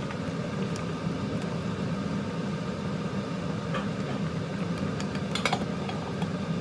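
A steady low mechanical hum, like a small appliance motor running, with a few light clicks and taps over it, mostly about five seconds in.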